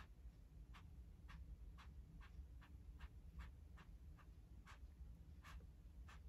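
Faint, light taps of a small paintbrush dabbing paint onto a stretched canvas, coming irregularly about twice a second, over a low steady hum.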